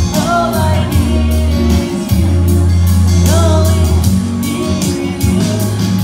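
A male singer performing live into a microphone over amplified backing music with a heavy bass line and a steady beat, played through PA speakers.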